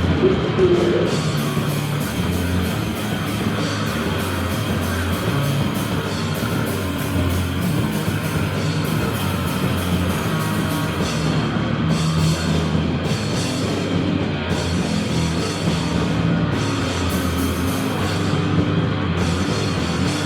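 Deathgrind band playing live: loud, dense distorted guitars with a drum kit hitting fast and without a break.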